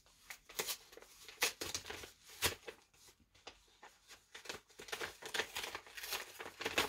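A mailed parcel being worked open by hand: an irregular run of rustles, crinkles and short tearing sounds from its packaging.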